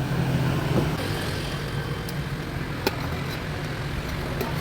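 Motorbike engine running steadily under way, with road and wind noise and a few sharp clicks.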